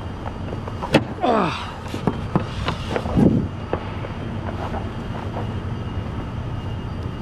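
A thick trailer bolt seal being cut, with a sharp snap about a second in as it gives, followed by a couple of short falling squeaks, over a steady low engine hum.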